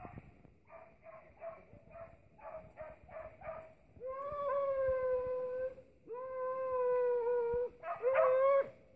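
Hunting hound giving tongue on a rabbit's trail: a run of short yelps, about three a second, then from about four seconds in three long drawn-out howls, louder.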